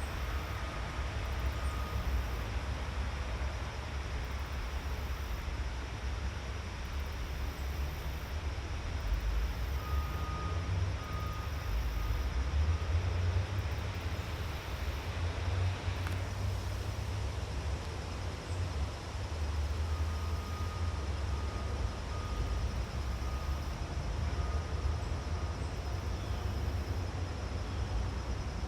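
Outdoor forest ambience: a steady, uneven low rumble, with faint short high calls repeated in a few spells and a single click midway.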